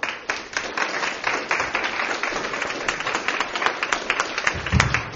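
Audience applauding: many hands clapping in a dense, even patter that starts abruptly.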